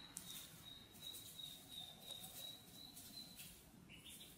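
Faint, high-pitched chirps repeated evenly at about one pitch, a few each second, stopping about three seconds in, over quiet room tone with a few soft ticks.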